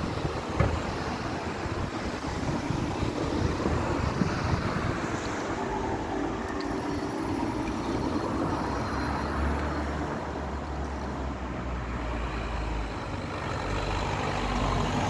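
Road traffic: a motor vehicle's engine running steadily, with a deeper engine hum from about nine to twelve seconds in.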